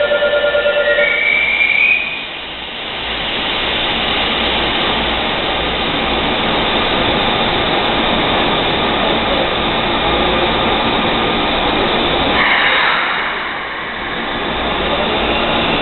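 A station platform's departure bell or buzzer stops about a second in, a short high tone follows, then a Keikyu 600 series electric train pulls out and runs past along the platform with a steady rumble of wheels and motors for about ten seconds, briefly louder near the end.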